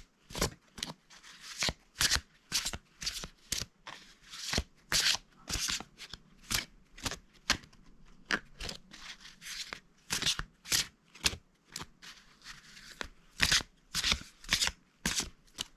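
A deck of tarot cards being shuffled by hand: quick papery strokes, about two or three a second.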